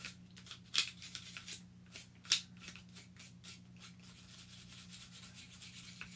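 Gun-cleaning brush scrubbing the solvent-sprayed metal parts inside a semi-automatic pistol's frame to loosen gunpowder residue: a run of quick scratchy strokes, two of them sharper about a second in and just after two seconds, fainter toward the end.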